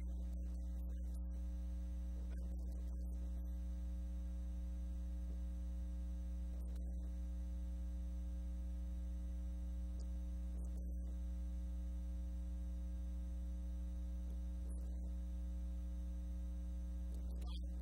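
Steady electrical mains hum with a buzz of evenly spaced higher overtones, with a few faint brief clicks scattered through it.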